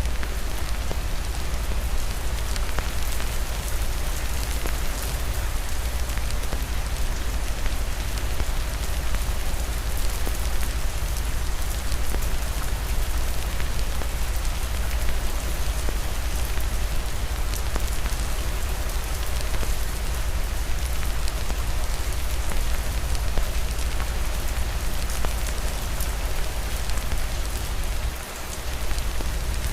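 Steady rain falling, layered with the crackle of a wood fire in a fireplace, over a deep low rumble that dips briefly near the end.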